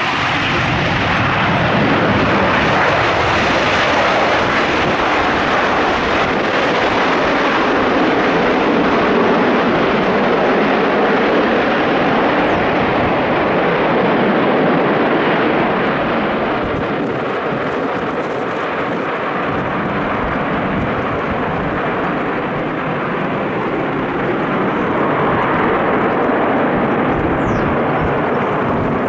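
Jet noise from a Singapore Airlines Airbus A380's four jet engines as the airliner moves along the runway: a loud, steady rush that eases a little past the middle and builds again near the end.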